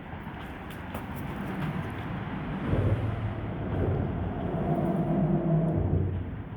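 Road traffic passing on a nearby bridge: a vehicle's rumble and tyre hum swells in the middle and fades near the end.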